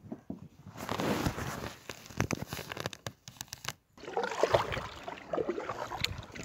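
Water sloshing and splashing at the surface close to a camera at the waterline, with a few sharp splashes from kayak paddle strokes. It cuts off abruptly just before four seconds in and gives way to a different outdoor background sound.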